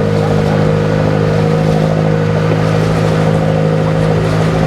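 Engine of a motorized outrigger canoe (bangka) running steadily at a constant speed, with an even hum.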